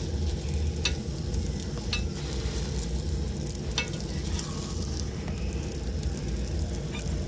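Chapati frying in oil on a hot pan, sizzling steadily, with a few light clicks through it.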